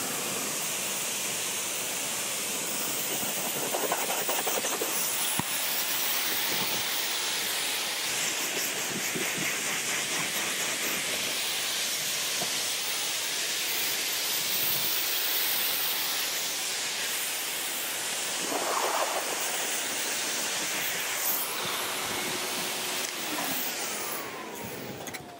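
Livestock blower blowing a steady, loud rush of air through its hose onto a calf's coat. Near the end it is switched off and the motor winds down with a falling whine.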